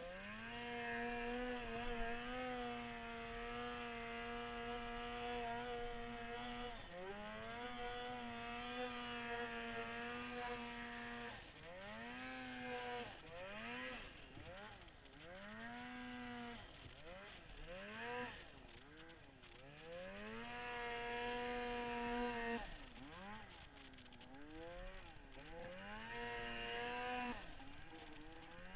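Turbocharged Polaris Dragon 800 two-stroke snowmobile engine working in deep powder. It is held at high revs for several seconds at a time, and in between the throttle is let off and opened again many times, so the pitch swoops down and back up repeatedly.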